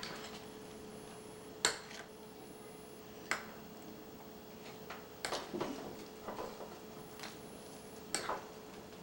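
A metal spoon clicking against a glass mixing bowl a few times, about a second or two apart, while whipped topping and fruit are folded together, with soft scraping in between. A faint steady hum runs underneath.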